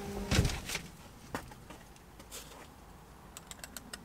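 Handling and movement noises of a person climbing out of a vehicle: a knock just after the start, a few light clicks over the next second, then faint scattered clicks and rustles near the end.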